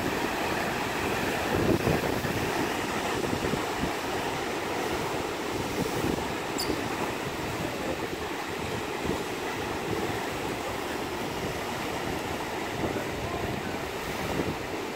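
Steady outdoor rush of wind, with irregular low rumbling gusts buffeting the microphone.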